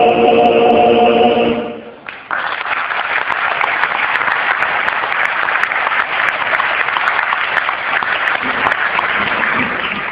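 A men's choir holds a sustained final chord that cuts off about two seconds in, followed by audience applause for the rest.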